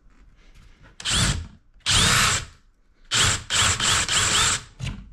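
Power drill boring into a PS5's plastic faceplate in a series of short bursts, starting about a second in, the motor speed rising and falling with each squeeze of the trigger.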